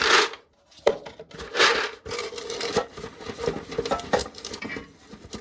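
Ears of dried corn being worked into a corn sheller: irregular crackling, rustling and sharp clicks of cobs and loose kernels, with a faint steady hum underneath from about two seconds in.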